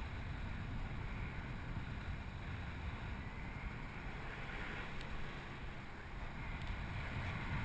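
Wind buffeting the microphone of a GoPro HD Hero 960 carried aloft on a parasail: a steady rush of noise, heaviest in the low end, with no break.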